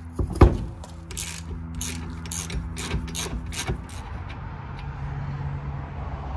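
Ratchet wrench and socket on the 30 mm rear hub nut. A single loud crack about half a second in, then a run of ratchet clicks for about three seconds, settling into a quieter low steady hum near the end as the nut is spun off by hand.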